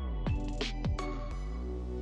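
Electronic background music: falling synth sweeps and short hits, then a held synth chord from about a second in that begins to fade.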